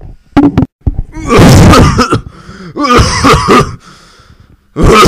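A man's voice making loud retching and throat-clearing noises in several long bursts with short gaps, with no music behind them.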